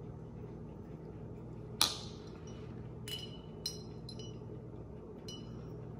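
A handful of light clinks from a metal spoon against dishes over a low steady hum. The sharpest comes just under two seconds in, and a few smaller ones follow.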